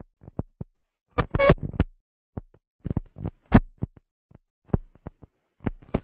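DJ working a vinyl record on a turntable: short, chopped bursts of the record cut in and out with silent gaps between, several clicks and snippets a second, a couple of longer pitched fragments.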